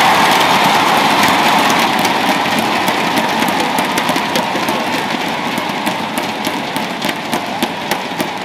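Home crowd in a badminton arena cheering the match-winning point. The roar eases off gradually and turns into more and more scattered clapping.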